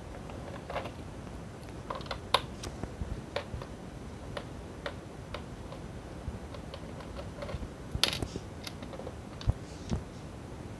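Irregular light clicks and taps from hands handling a Dell Inspiron N4050 laptop's plastic bottom case and its small screws, with a sharper cluster of clicks near the end.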